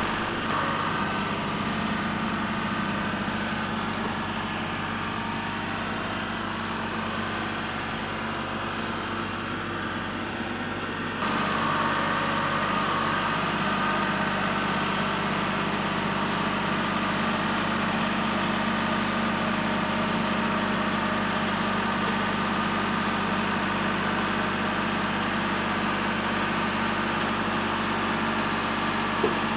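A diesel engine idling steadily, getting a little louder about eleven seconds in.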